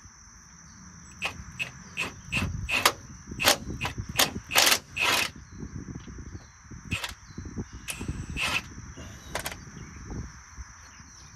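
Milwaukee M18 Fuel cordless impact wrench hammering in short bursts, with sharp metallic clicks, as a bolt on a dump truck's hydraulic cylinder mount is worked loose; the bolt turns out to be very loose.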